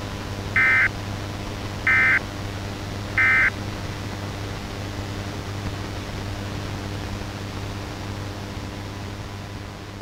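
Three short screeching data bursts about 1.3 seconds apart: the Emergency Alert System's end-of-message (EOM) tones that close a weather radio warning. Between and after them, steady radio static with a low hum.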